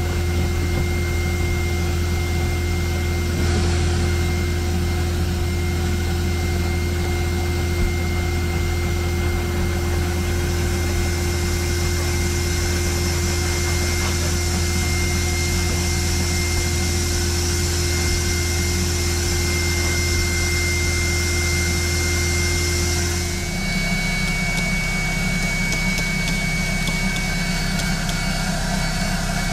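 A vacuum motor runs steadily with a low hum and a hiss. About three-quarters of the way through, the hum shifts to a different, higher pitch.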